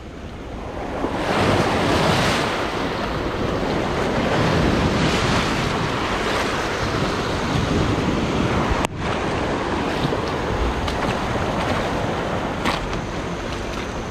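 A surge of large wake waves rushing up a riverbank, water washing and splashing over the grass and driftwood in a steady roar that builds over the first couple of seconds. The sound drops out briefly about nine seconds in.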